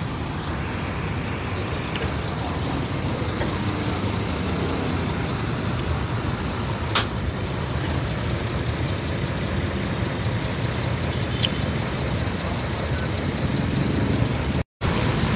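Steady low engine rumble of idling vehicles mixed with street traffic, with a sharp click about seven seconds in; the sound cuts out briefly near the end.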